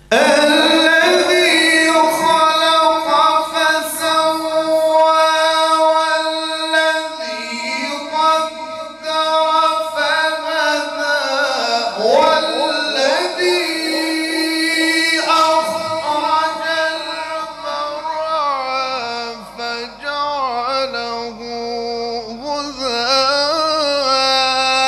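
Male voice reciting the Quran in a melodic, chanted style, holding long notes with slow ornamental glides up and down. It starts suddenly.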